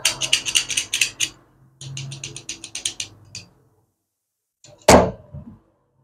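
Steel mortise lock being handled, its loose metal parts clicking rapidly in two runs of a second or so each, about eight clicks a second. A single loud knock comes about five seconds in, as the lock is set down on a hard surface.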